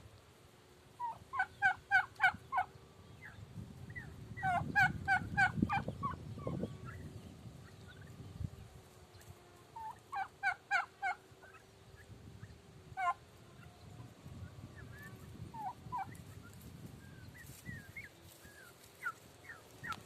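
Turkeys gobbling: three bursts of rapid gobbles, each about a second to a second and a half long, with a single call and scattered short higher calls between them.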